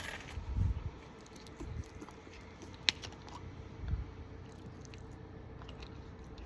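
A person drinking orange juice: a few soft gulping swallows, with one sharp click near the middle.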